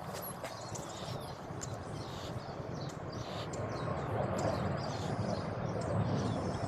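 Small birds chirping, many short high calls overlapping without pause, over a steady low background rumble.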